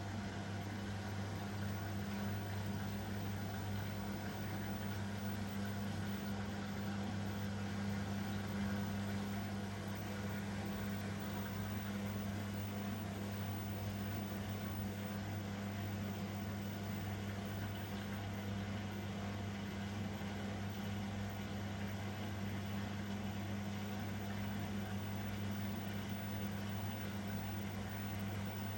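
Elin washing machine running mid-programme, a steady low hum with a faint whirring noise and no change in pitch.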